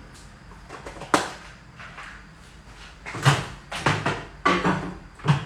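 Microwave oven being loaded: a sharp click about a second in as the door opens, then a series of knocks and clunks as the dish goes in and the door shuts.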